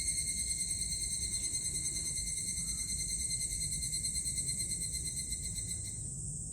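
Cicadas buzzing: a steady, high, finely pulsing drone.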